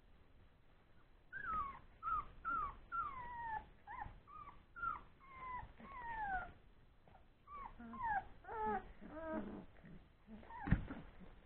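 Three-week-old Old English Sheepdog puppies whining, a long string of short high cries that mostly fall in pitch, with a short pause partway through. Near the end comes a single sharp thump.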